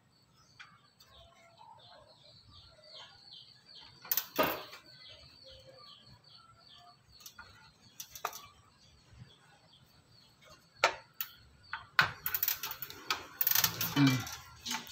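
Thin front-panel connector leads being worked onto motherboard header pins inside a desktop PC case: a few sharp plastic clicks, then a burst of rattling and rustling near the end. Quick repeated high chirps run through the first half.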